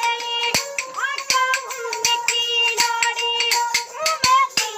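A boy singing, accompanied by a bowed string instrument holding steady drone notes, with sharp clicks from hand-held percussion keeping time.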